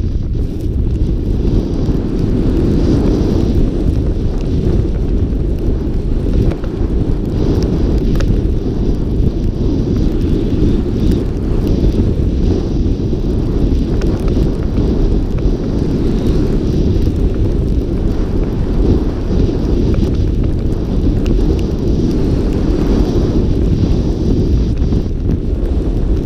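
Wind buffeting a helmet-mounted camera's microphone as a snowboarder rides downhill: a steady, loud rumble.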